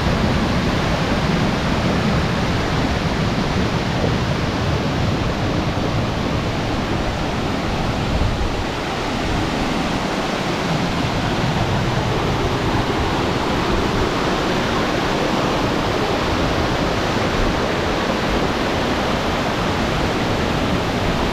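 Waterfall pouring heavily over rocks, a loud steady rush of water.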